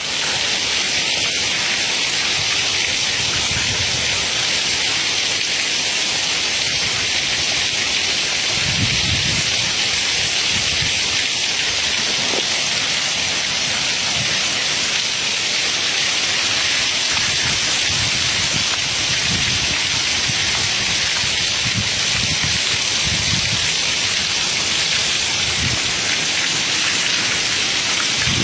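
A steady, even hiss like heavy rain, with soft low rumbles that come and go.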